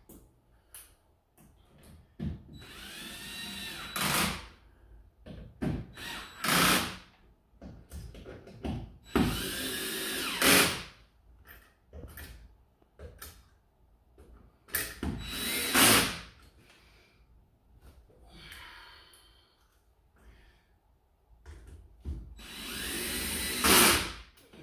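Power drill run in about four short bursts, its whine rising and falling each time, with knocks and clicks between.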